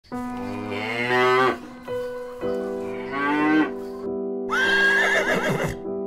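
Holstein cow mooing twice, two drawn-out calls rising in pitch, over background music. Near the end a horse whinnies, a higher, wavering call.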